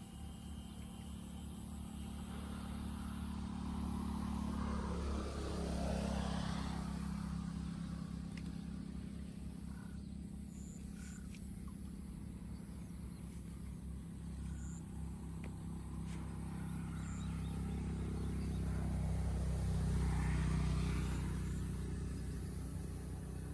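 A motor vehicle passing by twice, its noise swelling and fading about six and twenty seconds in, over a steady low hum.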